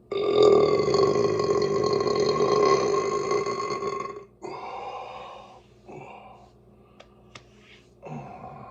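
A person belching: one long, loud burp held at a fairly steady pitch for about four seconds, then a few shorter, quieter sounds.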